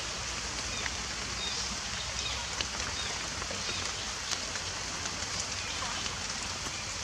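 Steady rain-like hiss of outdoor forest ambience, with scattered faint ticks and a few short chirps.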